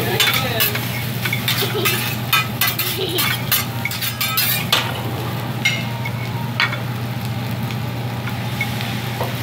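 Hibachi chef's metal spatulas clicking and scraping on a teppanyaki griddle as rice sizzles. The clicks come thick and fast for about the first five seconds, then only now and then, over a steady low hum.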